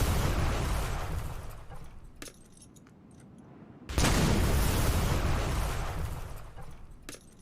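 Anime sound effect of a metal crown falling to the ground, repeated twice: each time a sudden heavy crash that fades away over about two seconds. Light metallic clinks fall between the crashes.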